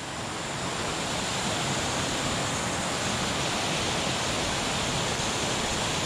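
Small mountain-stream waterfall cascading into a pool: a steady, even rush of water.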